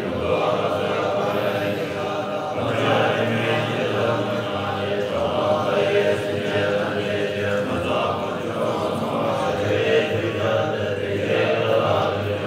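Monks chanting together in a low, steady drone, with short breaks between phrases.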